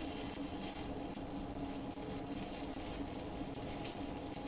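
A steady, even machine hum with no change in pitch or level.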